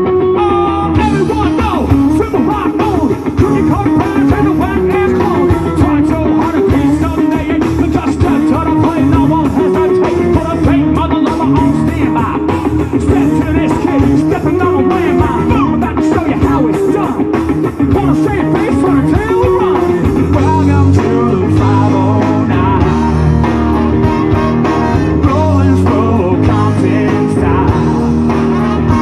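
Live rock band playing: electric guitar, bass guitar and drums, with a vocalist on a microphone over them. The bass gets heavier about twenty seconds in.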